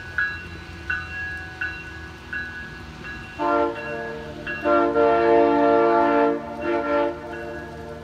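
Nathan Airchime K3HA three-chime locomotive air horn sounding a chord: a short blast about three seconds in, then a long blast, then a short one near the end. Under it a bell rings in an even beat, about once every 0.7 seconds.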